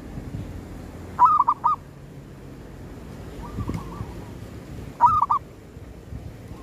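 Zebra dove (perkutut) calling: two short, loud runs of rapid cooing notes, about a second in and again about five seconds in, with a fainter call between them.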